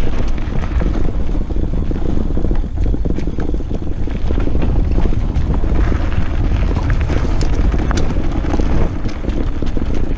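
Wind buffeting the camera microphone as a Vector Typhoon-Light electric mountain bike rolls along a dirt and gravel trail, a steady low rumble of tyres on the ground with scattered ticks and rattles from the bike over bumps.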